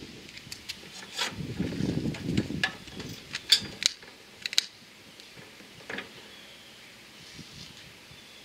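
Sharp clicks of a long-nose butane utility lighter being triggered again and again to light charcoal in a metal chimney starter, spread over the first half with a brief low rustle of handling about two seconds in.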